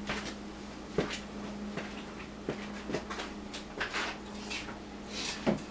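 Objects being rummaged through and handled on a shelf: scattered knocks, clicks and rustles, with a louder clatter near the end.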